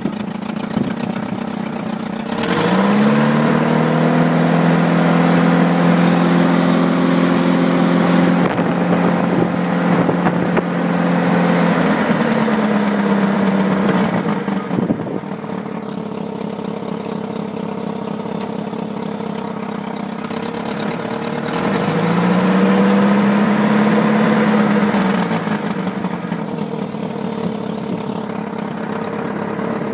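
Small dumper truck's Mini four-cylinder A-series petrol engine idling, revved up about two seconds in and held for about ten seconds before dropping back to idle, then revved again briefly for a few seconds about two-thirds of the way through.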